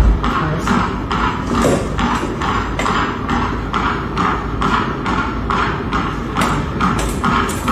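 Background music with a steady percussive beat, about two and a half strokes a second.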